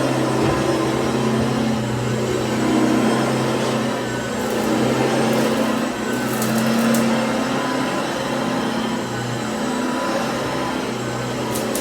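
Cordless stick vacuum running steadily, its motor giving a low hum with a wavering higher tone over a rush of air. A few brief ticks about halfway through.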